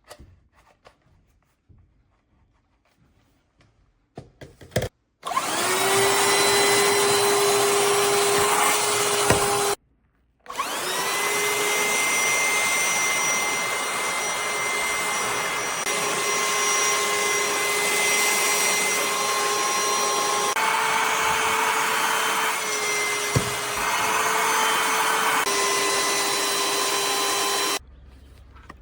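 A few light handling clicks, then a cordless handheld vacuum cleaner's motor starts about five seconds in with a rising whine and runs. It stops briefly, spins up again and runs steadily, its pitch shifting slightly a few times, before cutting off near the end.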